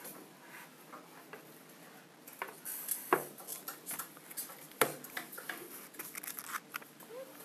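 Sheets of paper rustling and shuffling close by, with scattered clicks and a few sharper knocks, the loudest about three and five seconds in.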